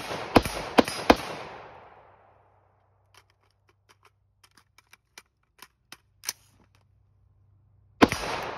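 AR-15 rifle firing four quick shots in about a second, each echoing away over a second or so, then a single shot near the end. Faint small clicks come between them.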